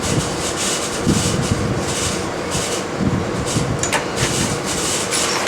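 Repeated rubbing and scraping handling noises, from parts or tools being moved about, over a steady low hum.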